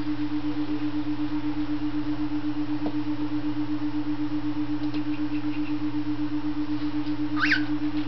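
Binaural brainwave tone: a steady low hum whose loudness pulses evenly a few times a second. Near the end comes one short bird chirp that sweeps up and back down.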